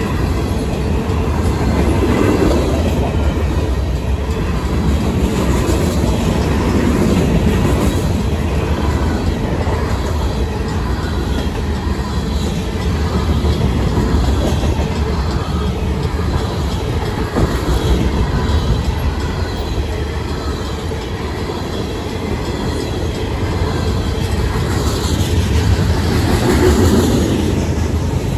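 Union Pacific freight cars (covered hoppers and tank cars) rolling past at a crossing: a steady low rumble of wheels on rail with rhythmic clatter and some wheel squeal. The grade-crossing bells ring throughout. Near the end the noise rises as a mid-train diesel locomotive comes up.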